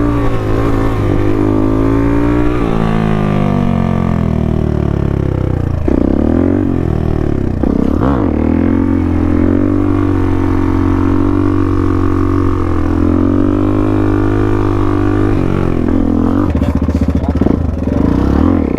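Dirt bike running with the throttle working, its pitch rising and falling repeatedly.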